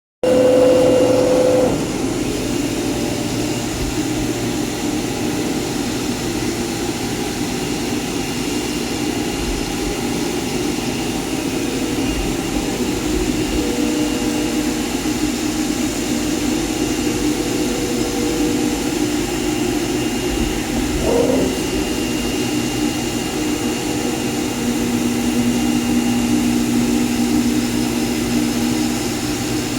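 CNC cutting machine for layered fabrics and films running: a steady loud whirring with several motor tones that come and go, louder for the first couple of seconds and with a brief rising whine about two-thirds of the way through.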